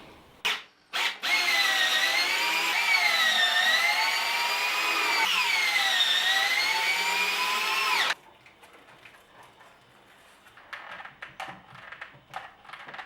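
Power drill driving a screw into thick plywood: two short blips, then a whining run of about seven seconds whose pitch dips and recovers twice as the screw bites. It stops suddenly, followed by faint clicks and handling.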